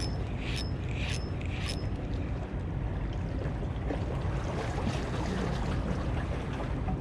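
Steady low rumble of wind and water noise on the microphone. In the first two seconds there are four short, high chirps about half a second apart.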